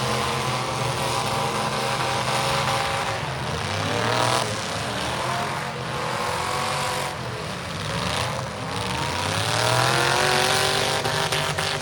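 Demolition derby car engines revving hard over and over, the pitch climbing and falling several times, over the steady din of several engines running together.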